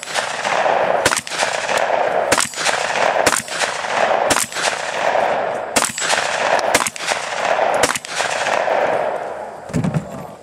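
Gunshots from a long gun, seven shots at roughly one a second, each followed by a long echo. Just before the end there is a low thud with a few small clicks.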